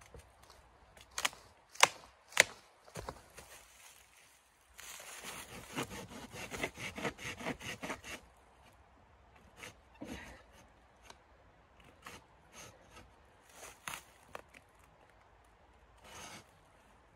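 A dry dead branch being cut with a hand saw: a few sharp cracks of wood at first, then about three seconds of quick rasping saw strokes, then scattered crackles and rustling of dry leaves underfoot.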